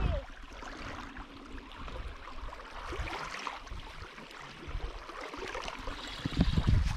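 Waterside ambience: a steady low wash of water with irregular low rumbling that grows louder near the end.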